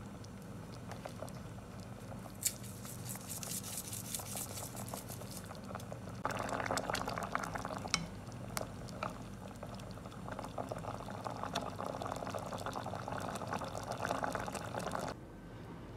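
A pot of vegetables and meat in broth simmering and bubbling, with a wooden spoon stirring through it. The bubbling gets louder about six seconds in and cuts off abruptly near the end.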